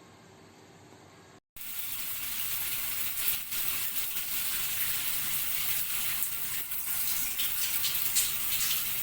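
Water running steadily, a hissing gush that starts suddenly about a second and a half in after a faint room hum.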